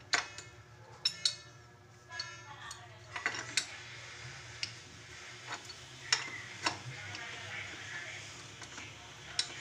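About a dozen scattered clinks and knocks of hard objects being handled, some with a short ring, over a low steady hum.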